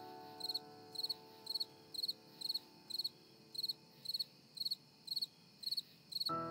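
A cricket chirping steadily, about two short chirps a second, over soft background music. A held chord fades away, and a new chord comes in near the end.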